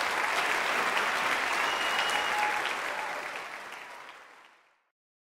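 Audience applauding after a choir piece, a dense wash of clapping that fades out about four and a half seconds in.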